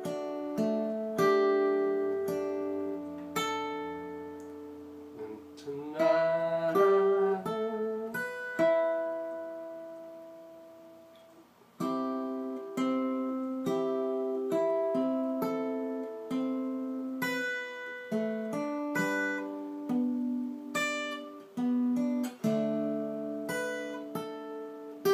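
Acoustic guitar fingerpicked slowly, single notes and broken chords ringing and dying away one after another. About six seconds in, several notes waver in pitch. Near the halfway point the ringing fades almost to silence, and plucking starts again a second later.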